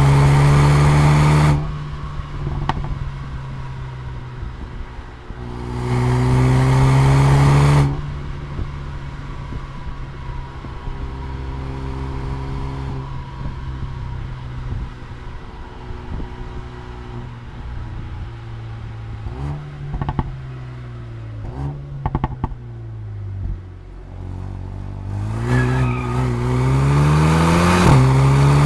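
Mercedes-AMG A35's turbocharged four-cylinder engine and sport exhaust on a spirited drive: two short pulls under full throttle with rising revs, then a long stretch of light throttle with a few sharp crackles and pops on the overrun. It pulls hard again near the end, revs rising, and drops in pitch at an upshift.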